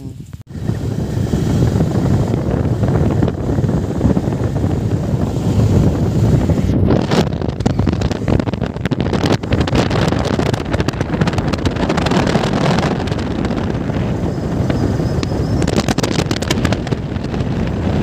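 Wind buffeting the microphone of a motorcycle riding at speed, a loud, steady rush with road and engine noise beneath it and stronger gusts now and then. It starts suddenly about half a second in.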